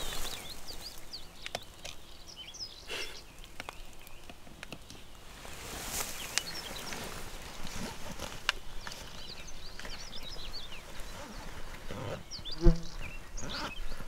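Hunting gear being packed by hand: fabric rustling and small clicks and knocks as items are handled, with one sharp clunk near the end. Small birds chirp steadily in the background.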